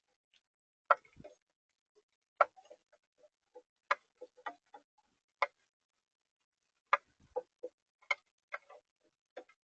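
Irregular sharp taps on a bird-feeder camera, about one a second, each short and separate with silence between.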